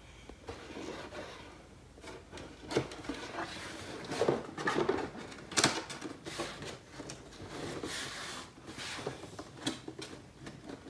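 Cardboard box being handled and its flaps folded shut, with irregular scraping and rustling and a few sharp taps, the loudest a little past halfway.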